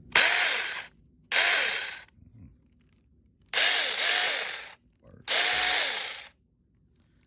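Devenbo 6-inch cordless mini chainsaw triggered four times in short bursts, its electric motor and chain spinning up and winding down each time.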